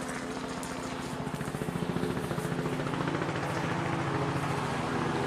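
An engine running with a rapid, even pulsing beat, getting louder over the first couple of seconds and then holding steady.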